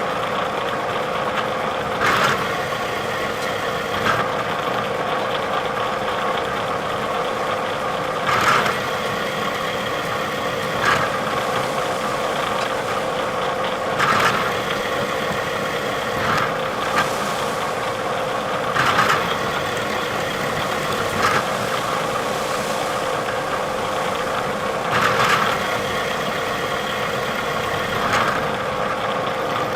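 Bridgeport milling machine running with a steady hum while it mills a slot in a steel part, with short louder bursts every two to three seconds.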